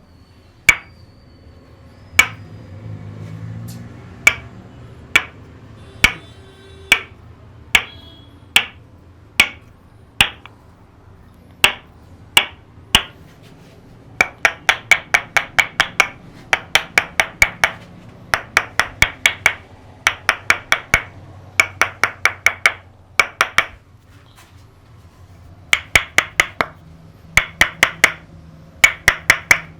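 Percussive head-massage tapping: sharp strikes, one about every second for the first dozen seconds, then in quick bursts of six or seven strikes at a time.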